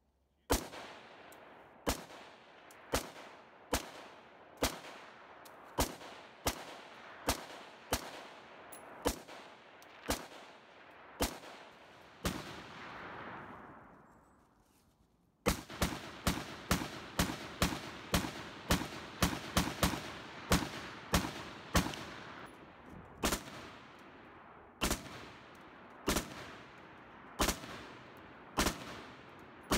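Black Sword AR-15 rifles fired semi-automatically, each shot followed by a rolling echo. First a string of about a dozen shots roughly a second apart, then, after a break, a quicker string of about three shots a second that slows to single shots spaced a second or two apart near the end.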